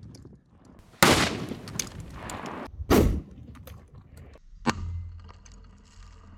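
Explosions of a firecracker-burst pressurised can: a loud sharp blast about a second in, a second equally loud blast about two seconds later, and a smaller bang near five seconds, each fading away in a noisy tail.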